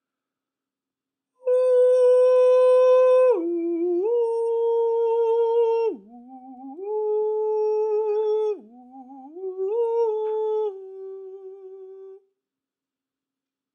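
A single treble voice sings a slow alto line on a sustained 'oo'. It starts about a second and a half in, holds long notes that step up and down with a couple of brief low dips, and stops a little before the end.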